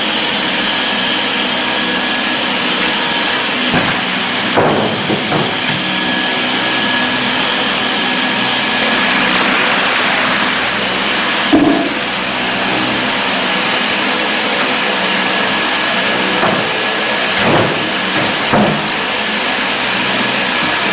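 Steady whir of running workshop machinery, with a few short knocks and clanks scattered through, the loudest near the middle.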